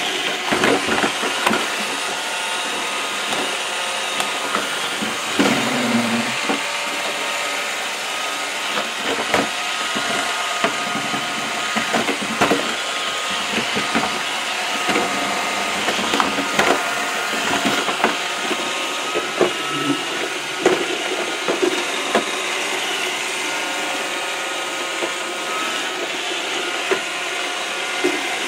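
Roomba robot vacuum running, its motors and brushes whirring steadily with a thin whine, while irregular knocks come every second or two as it bumps about inside the trap.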